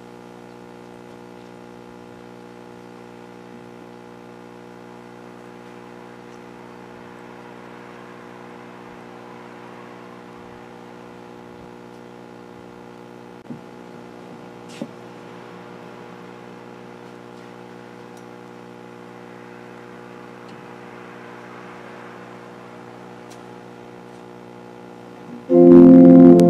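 A quiet, steady hum of several held tones with two faint clicks midway. About a second before the end, organ music comes in loudly.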